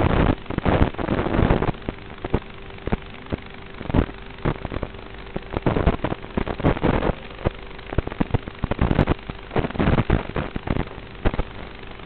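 FPV racing quadcopter's motors and propellers heard through the onboard audio feed: rough, uneven surges of noise as the throttle is pushed and eased, over a faint steady hum. After about eleven seconds it settles to a steady lower hiss.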